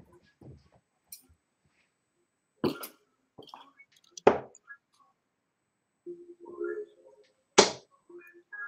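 Three sharp thuds of darts striking a dartboard, the second about a second and a half after the first and the third about three seconds later, with brief low voice murmurs in between.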